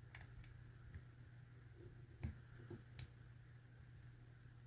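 A few faint, irregular clicks of a dimple pick working the pins inside a Mul-T-Lock euro cylinder.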